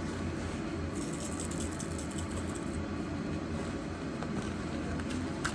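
Steady fan hum, with a light crackly rustle for a couple of seconds about a second in and a single click near the end.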